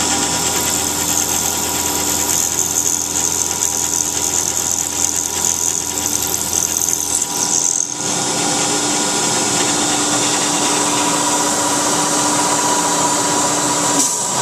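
CNC milling machine cutting an aluminum part with coolant running: a steady whine over a loud hiss of cutting noise, which dips briefly about eight seconds in.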